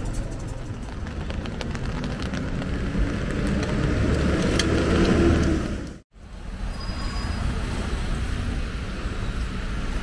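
Street traffic noise, building to its loudest about five seconds in, then cut off abruptly by a brief silence about six seconds in. After the gap comes a steadier outdoor background rumble.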